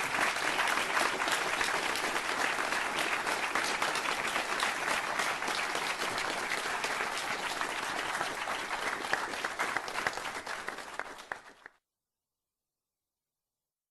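Audience applause, many hands clapping densely, thinning out and fading away over the last few seconds before dead silence of about two seconds.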